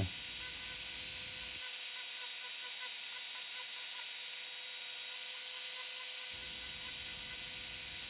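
Dremel MultiPro variable-speed rotary tool running at a steady high whine, its cone-shaped ceramic bit texturing a basswood carving.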